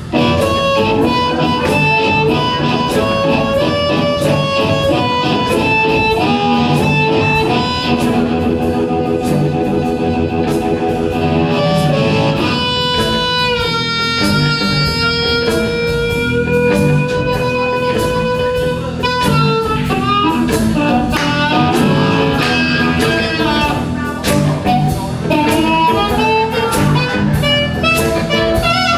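Blues band playing live: amplified harmonica blown into a hand-cupped microphone over box-bodied homemade guitars and a drum kit. Near the middle the harmonica holds one long note for several seconds, bending it slightly, before the band fills back in.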